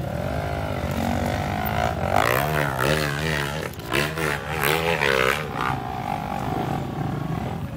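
Dirt bike engines running, with the throttle blipped up and down several times in quick succession near the middle.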